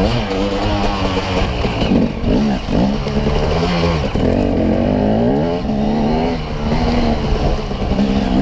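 Dirt bike engine being ridden hard, its pitch rising and falling again and again with the throttle.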